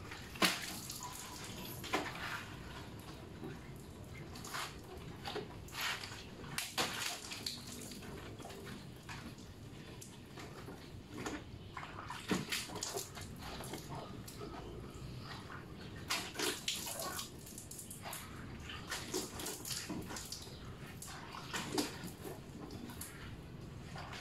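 Water scooped from a bucket with a plastic dipper and splashed over a scooter, irregular splashes and sloshes over a steady background hiss.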